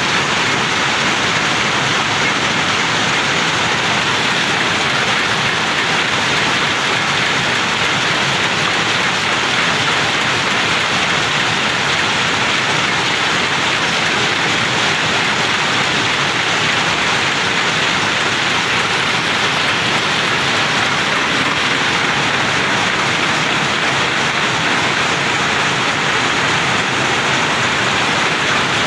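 Steady, loud din of many power looms running in a weaving shed, a dense unbroken clatter with no single stroke standing out.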